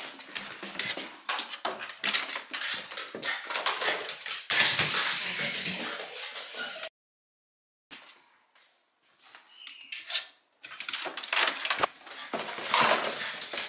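Small shiba inu (mameshiba) moving about on a wooden floor, with many quick clicks and scuffs, and some small whining squeaks. The sound drops out for about a second midway.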